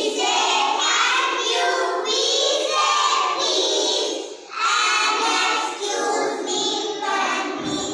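A group of young children singing together in unison, in phrases with a short break about four seconds in.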